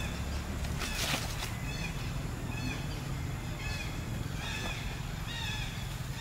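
Short, high chirping calls repeated about once a second, over a low steady background rumble, with a brief rustle about a second in.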